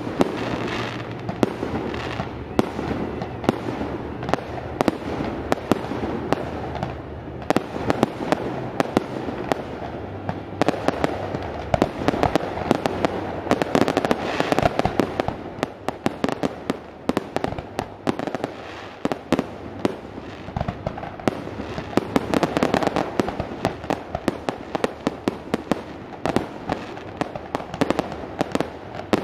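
Fireworks display going off: a dense, near-continuous run of sharp bangs and crackling from many aerial shells bursting at once.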